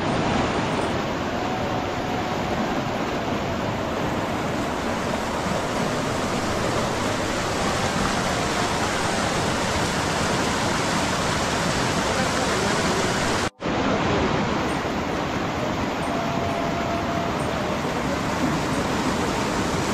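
Fast mountain river rushing over rocky rapids: a steady, loud rush of water that breaks off for a moment about two thirds of the way in.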